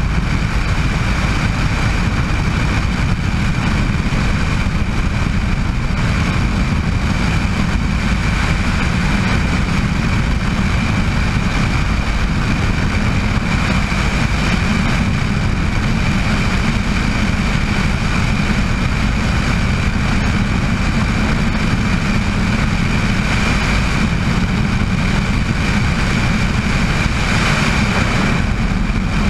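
Bell 206 JetRanger helicopter's turbine engine and rotor running steadily. A dense low rumble is topped by a constant high whine.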